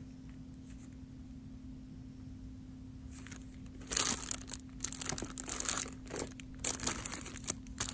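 Plastic-wrapped stationery packages crinkling and rustling in a plastic bin as they are handled, in repeated bursts starting about four seconds in. Before that there is only a faint steady hum.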